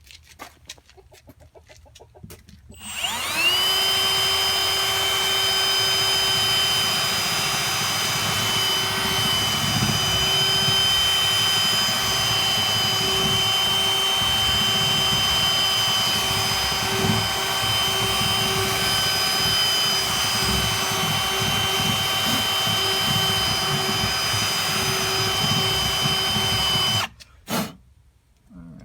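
Electric drill spinning up quickly and running at a steady speed for about 24 seconds, then stopping suddenly, followed by one short burst.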